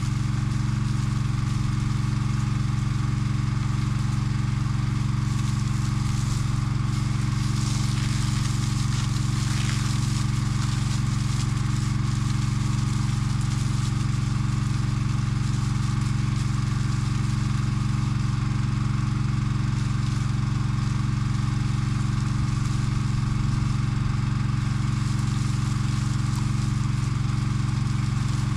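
Engine on a Yanmar C30R firefighting crawler running steadily at one fixed speed while the pump drains its water tank through a fire hose. Some hiss rides over it, a little stronger for a few seconds early on.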